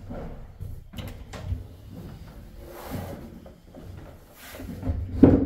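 Footsteps on a wooden staircase and floor: irregular knocks and creaks of the boards, the heaviest near the end.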